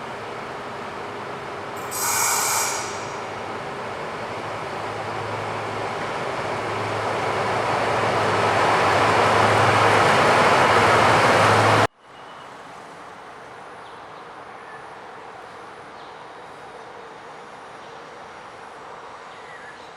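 A train rolling through the station, its noise growing steadily louder for about twelve seconds, with a brief high-pitched brake squeal about two seconds in. Then the sound cuts off abruptly to a quiet, steady background.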